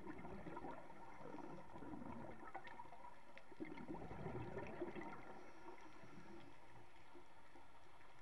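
Scuba regulator exhaust bubbles gurgling underwater for the first five seconds or so, then a quieter steady hiss.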